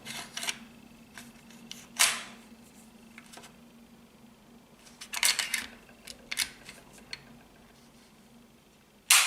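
Metallic clicks and short scrapes of a Smith & Wesson M&P pistol being reassembled, with its slide fitted back onto the frame and worked, coming as separate clicks with a cluster about five seconds in. A loud, sharp click comes near the end.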